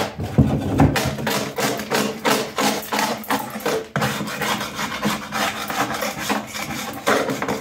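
Screwdriver and hammer chipping and scraping hardened resin flash off the rim of a granite composite sink still in its fiberglass mold, in rapid repeated strokes at about four a second.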